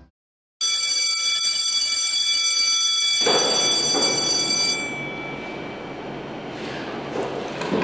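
A loud, steady high ringing tone with several pitches at once, like an alarm bell, comes in suddenly about half a second in. A rushing noise joins about three seconds in, and both stop near five seconds, leaving a quieter steady hiss.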